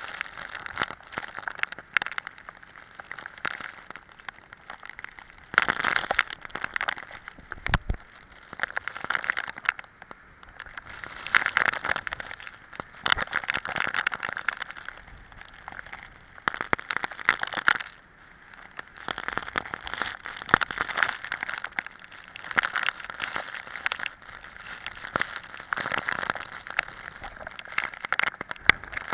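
Hurricane rain driven by wind against the camera, a dense crackle of drops striking it that swells and eases in gusts every few seconds. A single sharp knock about eight seconds in.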